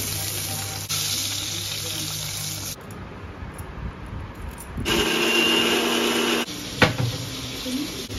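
Chopped onions sizzling in hot oil in a steel kadai for the first few seconds. About five seconds in, an electric mixer grinder runs briefly, grinding ginger, garlic and onion to a paste, and stops after about a second and a half; a sharp knock follows shortly after.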